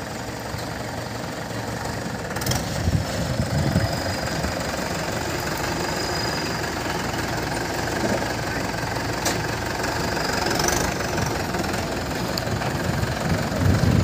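Mahindra 575 DI tractor's four-cylinder diesel engine idling steadily, with louder low rumbles about three to four seconds in and again near the end.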